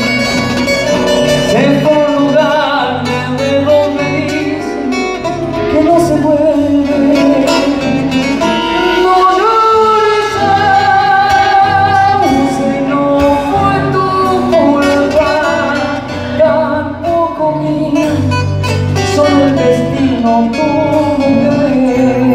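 A live band playing a chamamé: guitars, electric bass and drum kit, with a wavering melody line carried over the accompaniment.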